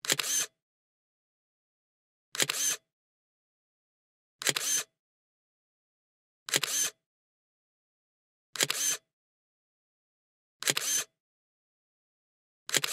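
Camera shutter sound effect, a sharp click with a brief mechanical tail, repeated seven times at even intervals about two seconds apart, with dead silence between.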